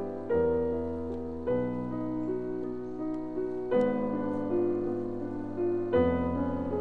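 Background piano music: slow, sustained chords, a new chord struck every one to two seconds.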